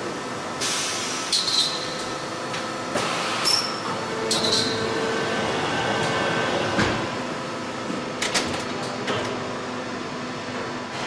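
Automated press and handling machinery running with a steady hum, broken by short pneumatic air hisses in the first half and by metallic clicks and clunks later, one sharp knock about seven seconds in.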